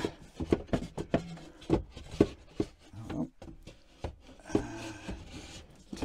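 Wooden shelf board knocking and scraping against the sides of an under-sink cabinet as it is tilted and worked into place: a run of irregular knocks, with one sharper knock about two seconds in.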